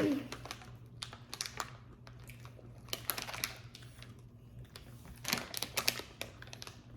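Three short bursts of light clicking and crinkling, from handling the plastic Nerds Gummy Clusters candy pouch.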